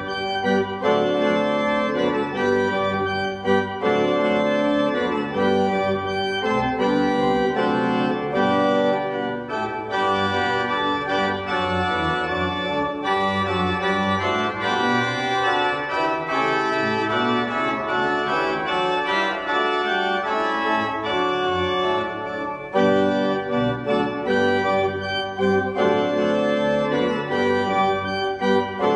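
Church pipe organ playing a postlude after the closing blessing: full sustained chords over a moving bass line, with a brief break about two-thirds of the way through.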